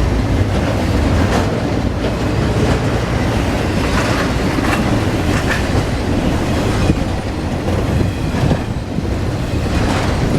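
Freight train cars rolling past, with a steady rumble and the clickety-clack of wheels over the rail joints.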